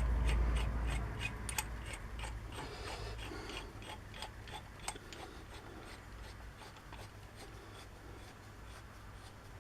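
Light scattered clicks and rubbing of small parts being handled during reassembly of a hand drill, over a low rumble that fades after the first second or so.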